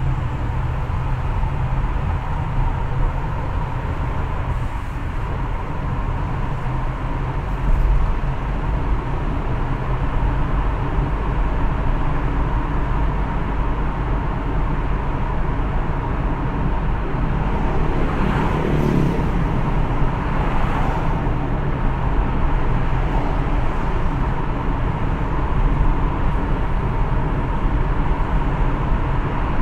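Steady road and engine noise of a car driving, with a steady tone running underneath. A brief swell of noise, about eighteen to twenty-one seconds in.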